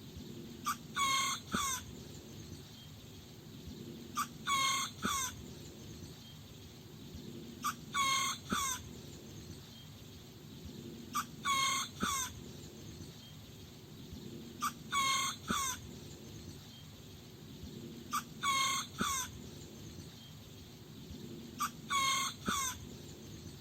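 Small rooster crowing over and over, seven crows evenly spaced about three and a half seconds apart. Each crow is a loud, high cock-a-doodle-doo of about a second in several short parts, heard over a faint low background rumble.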